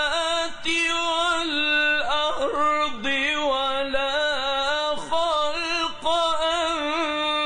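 A man chanting Quran verses in melodic recitation (tajweed), holding long drawn-out notes with ornamented turns of pitch and brief breaks between phrases.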